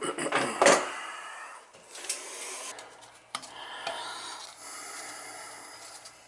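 Hard objects rubbing and scraping at a toilet being worked on, with a knock just under a second in.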